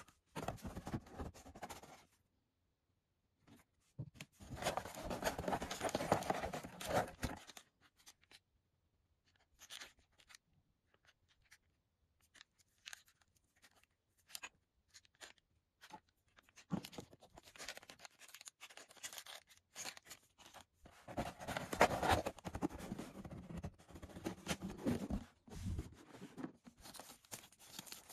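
Hands handling keyboard unboxing materials in bursts with short pauses: paper leaflets rustling, a braided cable and a small plastic bag being handled, and a fabric dust cover rustling, with scattered small clicks and scrapes between.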